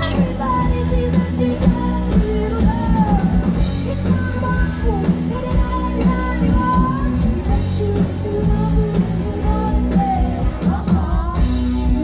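Live rock band playing through a PA: drum kit, bass and guitars, with a woman singing over them.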